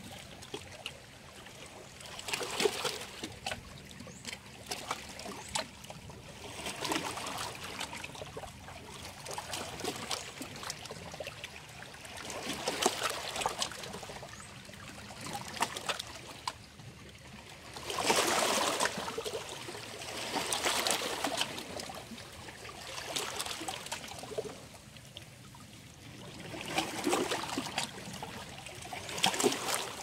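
Small sea waves washing against shoreline rocks, swelling into a splashy surge every two to four seconds, the biggest about two-thirds of the way through.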